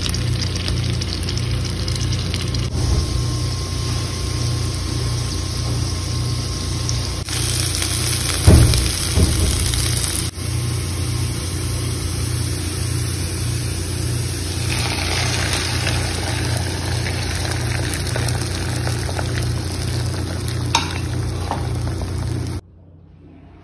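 Food sizzling as it fries in a pan (glazed sausages, then diced cubes, then beaten egg), a steady hiss whose character shifts abruptly several times, over a regular low pulse. A loud knock about eight and a half seconds in, and the sound drops away shortly before the end.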